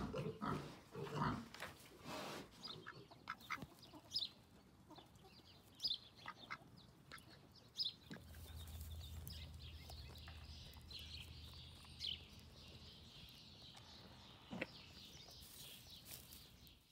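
Barnyard animals: a piglet grunting in the first couple of seconds, then scattered short clucks and chirps from poultry. A steady low hum comes in about halfway through.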